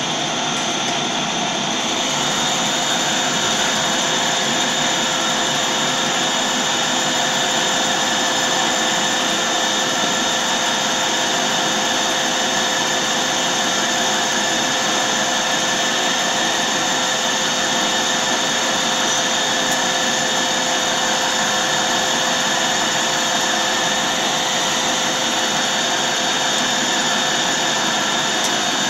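Metal lathe turning a large metal cylinder under cut: a steady mechanical whine with hiss from the spindle and the tool cutting, a little louder and brighter from about two seconds in.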